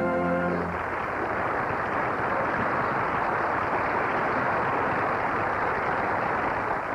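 Audience applauding after the orchestra's final chord cuts off. The clapping holds steady and fades near the end.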